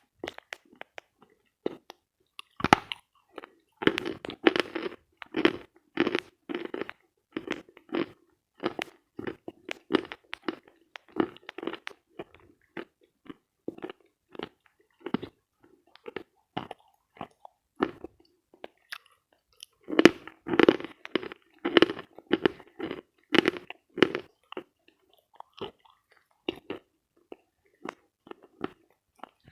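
Dry, dense edible chalk being bitten and chewed close to a headphone microphone: crisp crunching. Louder, dense clusters of crunches come about three seconds in and again around twenty seconds in, with steadier chewing crunches between.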